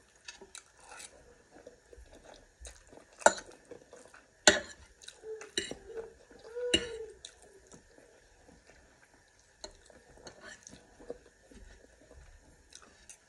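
Eating utensils clinking and scraping on a plate during a meal, with scattered light clicks and three sharper clinks. A short murmur of a voice comes around the middle.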